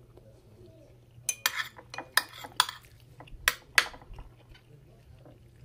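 Metal spoon clinking and scraping against a ceramic plate while scooping rice: several sharp clinks in quick succession, starting about a second in and stopping about four seconds in.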